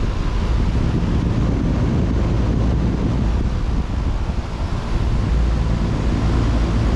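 Carrier air conditioner condensing unit running, its condenser fan blowing air in a steady, loud whoosh over the compressor hum, with a faint steady whine.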